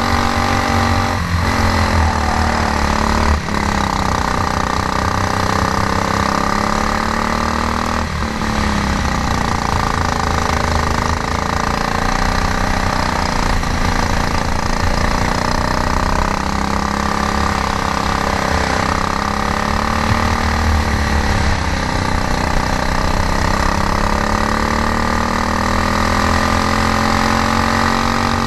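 Honda GX390 single-cylinder four-stroke kart engine running hard, its pitch sagging and climbing again several times as it slows and accelerates, with a few short knocks about a second, three and a half and eight seconds in.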